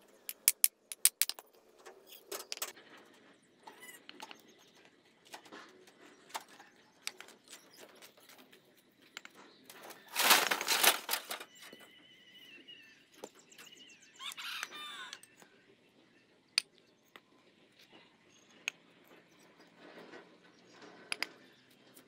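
Hand bricklaying: fired bricks clinking and knocking as they are set down, with a steel trowel on mortar, and a longer scraping noise about ten seconds in.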